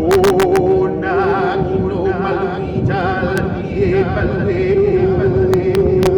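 Music with a singer holding long wavering notes, over the steady noise of a helicopter cabin. A few sharp clicks come at the start and again near the end.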